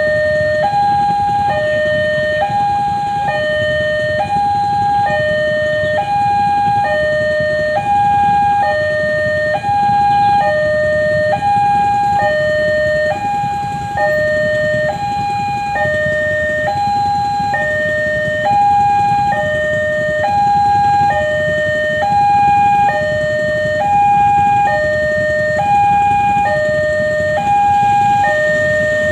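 Railway level-crossing warning alarm sounding from a horn loudspeaker on the signal pole. It is a loud electronic two-tone signal that alternates steadily between a higher and a lower note, changing a little under once a second, and it warns that a train is approaching. Waiting road traffic rumbles underneath.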